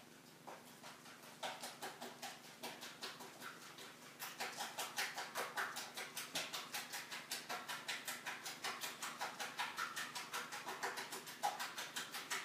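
Coton de Tulear puppies playing: a rapid, fairly even train of little clicks and patters, about five a second, with short squeaky yips mixed in. It starts sparse, thickens after a second or so and stops abruptly at the end.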